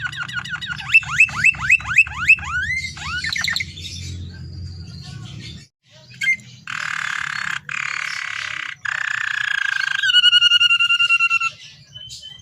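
Domestic canary singing a varied song: a run of quick sweeping notes, then three harsh, rasping phrases, then a fast trill of rapidly repeated notes near the end.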